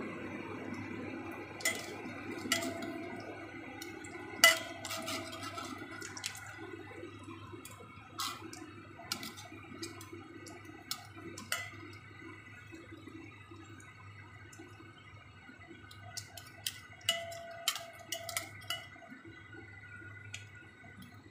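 Egg-coated slices of jenang frying in shallow oil in a non-stick wok: the oil sizzles with scattered sharp pops and crackles, and the sizzle slowly dies down. Near the end, metal tongs click against the pan as the slices are turned.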